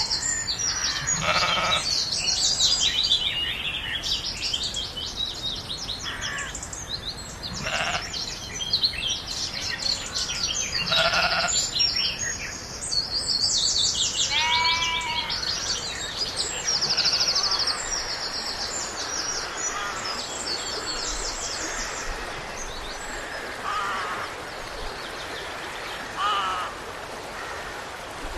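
Small birds singing with busy, rapid chirps and trills, and sheep bleating now and then, over a steady outdoor background. The birdsong thins out in the second half.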